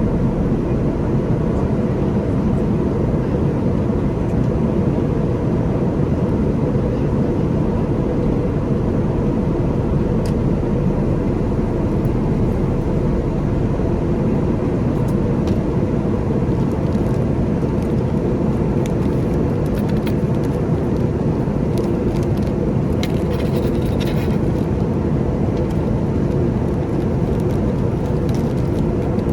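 Steady cabin noise of an Airbus A330-343 with Rolls-Royce Trent 700 engines in flight: an even rush of engine and airflow, unchanging in level, with a few faint clicks and rattles in the second half.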